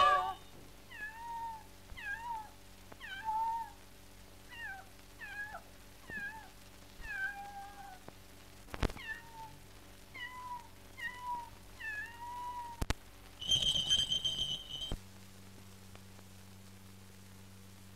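Small kitten meowing on an old film soundtrack: a string of short, thin, plaintive mews about once a second. Near the end comes a louder, higher held note, and after it only the soundtrack's steady low hum remains.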